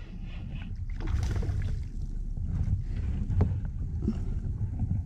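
A spinning reel being cranked on a kayak while fighting a hooked fish, under a steady low rumble of water and handling noise, with a few sharp knocks.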